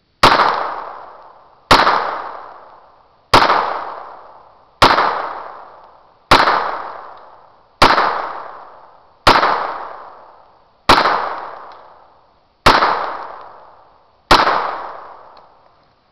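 Beretta U22 Neos .22 LR semi-automatic pistol firing ten shots at a steady pace, about one every second and a half. Each crack is followed by an echo that fades before the next shot.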